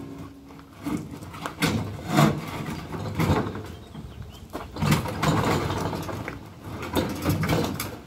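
Refrigerator scraping and knocking against a pickup truck's tailgate and bed as it is pushed and slid in. The scrapes and clunks come irregularly, several a second at times.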